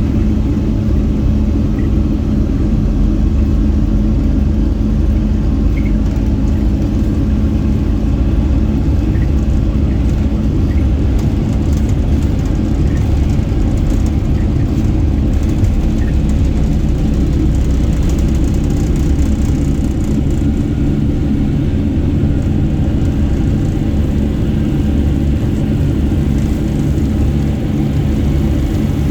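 Jet engine noise inside the cabin of a Boeing 757-200 airliner: a loud, steady rumble with a constant low hum.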